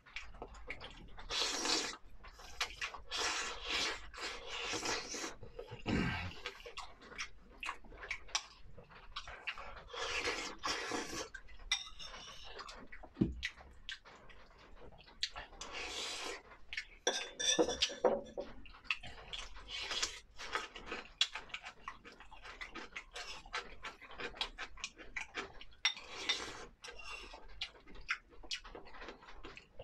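Close-miked eating of fish in spicy broth: irregular mouth sounds of eating and sipping, with utensils clicking against the bowl.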